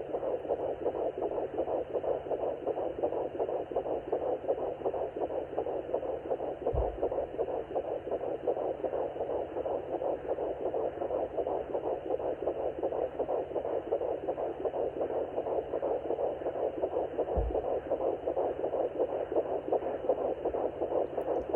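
Home fetal doppler picking up a 10-week fetus's heartbeat: a fast, steady whooshing pulse through the doppler's small speaker. Two brief low thumps come about a third of the way in and again near the end.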